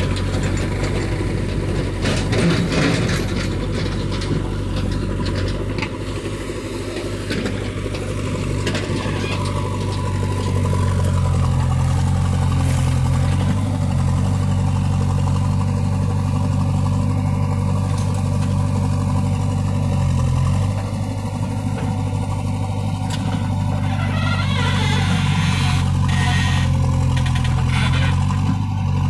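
JCB 3DX backhoe loader's diesel engine running hard under hydraulic load as the backhoe digs and swings, the revs picking up about ten seconds in. Short bouts of scraping and clatter from the bucket and the soil come a couple of seconds in and again near the end.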